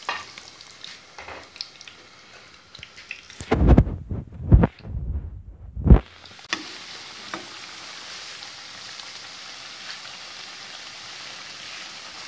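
Potato-onion besan pakoras deep-frying in hot oil, giving a steady sizzle. Between about three and a half and six seconds in, a cluster of loud low thumps and rumbling covers it, then the even sizzle goes on.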